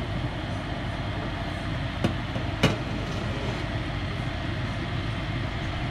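Steamer pot on the boil: a steady rush of steam and boiling water, with two short clicks a little after two seconds in, about half a second apart.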